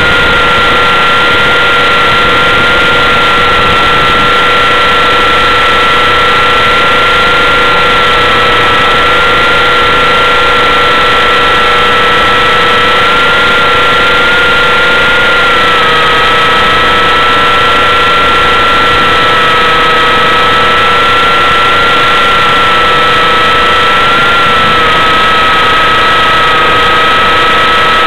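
T-Rex 600 radio-controlled helicopter's motor and rotor drive, heard close up from a camera mounted on the helicopter: a loud steady whine that wavers slightly in pitch over a constant rushing noise.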